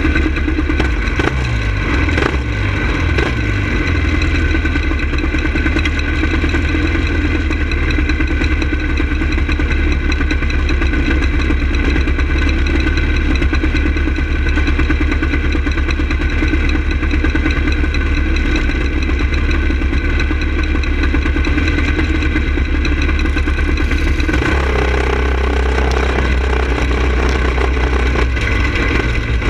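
Go-kart engine running close to the microphone, with other karts' engines around it, idling steadily; about 24 seconds in the engine note changes as the kart pulls away onto the dirt track.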